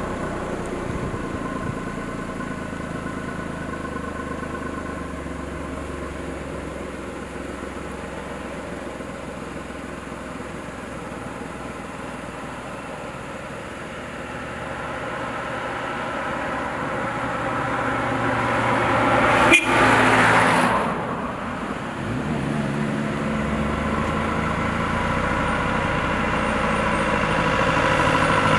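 Engines of trucks and cars running and idling in slow traffic. About two-thirds of the way through, a vehicle passes close by with a louder rush of engine and tyre noise.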